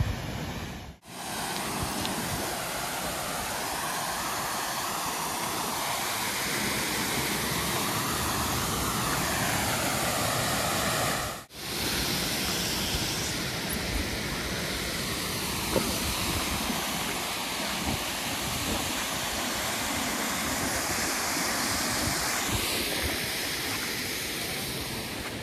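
Water rushing steadily over a small man-made waterfall cascade in a continuous even hiss. It cuts out for a moment twice, about a second in and about eleven seconds in.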